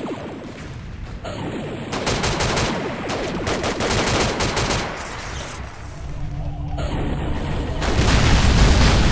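Sound-effect gunfire: rapid bursts of machine-gun and rifle shots starting about two seconds in, then a loud low rumble near the end.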